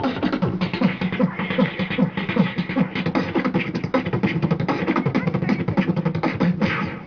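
Human beatboxing through a handheld microphone: a fast, continuous rhythm of mouth-made kick, snare and hi-hat sounds with short vocal tones mixed in.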